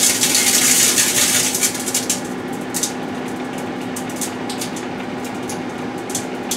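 A 1978 GE Dual Wave microwave oven running with a steady hum while a CD and a potato chip bag inside spark and crackle. The crackling is dense for the first couple of seconds, then thins to scattered sharp snaps.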